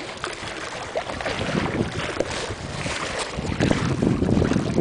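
Wind buffeting the microphone over water sloshing against a fishing kayak's hull as a hooked fish tows the boat. It grows louder and rougher toward the end.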